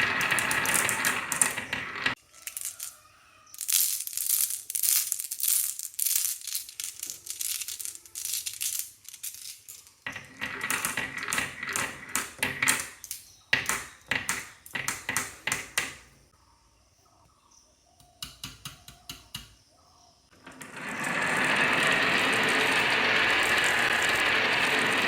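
Toy vehicles and marbles clattering down a HABA marble run's wavy slope: long runs of quick clicks and rattles, a brief pause, a few scattered clicks, then a steady rolling rush for the last few seconds.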